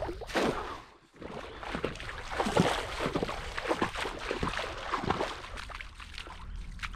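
Shallow water splashing and sloshing in a quick, irregular run of splashes, after a brief drop-out about a second in.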